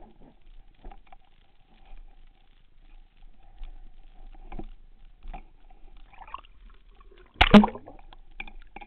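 Faint clicks and small knocks from spearfishing gear being handled, heard underwater through a camera housing as a speared pike is drawn in on the line. About seven and a half seconds in comes one loud, short knocking rustle as the diver's gloved hand reaches up by the camera.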